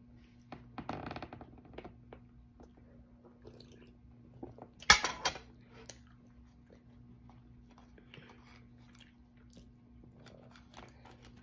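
A person chewing and biting into a soft bread roll (pandesal), with scattered small mouth and hand noises. A single sharp clack about five seconds in is the loudest sound. A faint steady low hum sits underneath.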